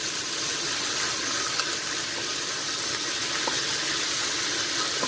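Tilapia and yellow spice paste sizzling in hot oil in a frying pan, a steady frying hiss with a faint tick or two.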